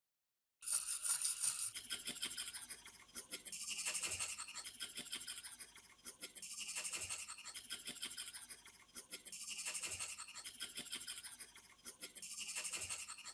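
Quick, scratchy scrubbing strokes worked by hand over a part, swelling and fading about every three seconds. The sound cuts in abruptly just after the start.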